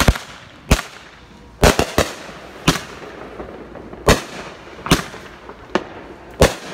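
A 500g consumer firework cake, Sky Bacon's Viva Mexico, firing its shots one after another: about nine sharp bangs at uneven intervals of roughly half a second to a second and a half, the first right at the start.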